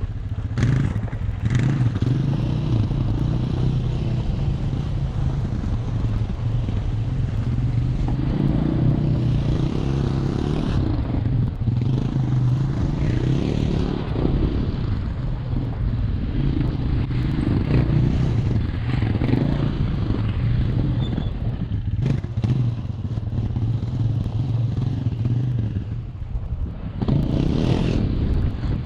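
Tesla Model 3 Performance crawling over a rocky dirt trail: steady tyre and road noise over gravel and stones, with clatter and a few sharp knocks from rocks under the car.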